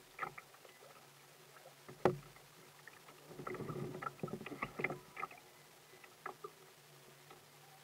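Small waves lapping and slapping against a plastic kayak hull, with scattered light clicks and taps, one sharper knock about two seconds in, and a busier splashy stretch in the middle.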